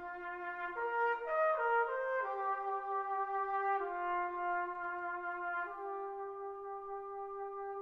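Brass band playing a slow, lyrical melody in long held notes that change pitch every second or two.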